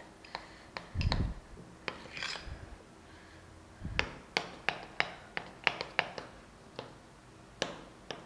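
Spoon clicking and scraping against a glass bowl while stirring thick chocolate icing: a string of short sharp clicks, about two or three a second in the second half, with a couple of dull thumps.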